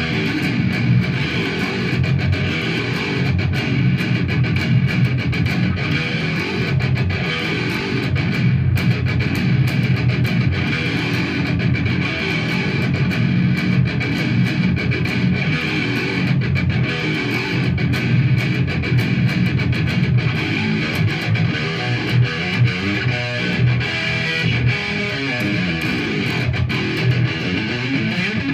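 Solo electric guitar playing an original song, picked riffs without a break and strongest in the low notes.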